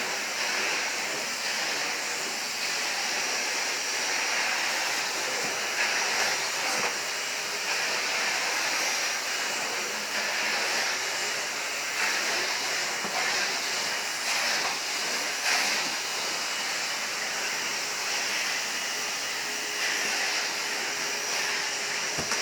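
1995 Numatic Henry cylinder vacuum cleaner running steadily while vacuuming a floor: a constant rushing hiss of sucked air with a thin high whine above it.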